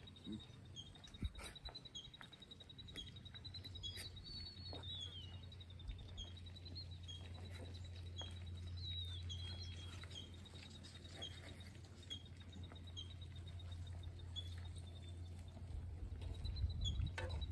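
Outdoor ambience: a steady high-pitched insect trill with short chirps repeating over it, a couple of brief bird calls, and a low rumble of distant road traffic that swells and fades.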